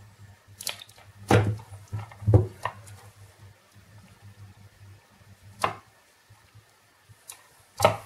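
Handling noise from a car keyless-entry kit: about seven scattered clicks and light knocks as the plastic remote fobs and the wiring harness are set down and picked up on a cloth-covered bench. The two loudest knocks come about one and a half and two and a half seconds in, each with a dull thud.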